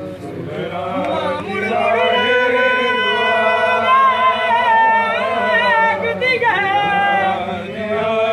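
Voices chanting a Sindhi noha (mourning lament) unaccompanied, in long drawn-out notes that bend and waver, swelling about two seconds in.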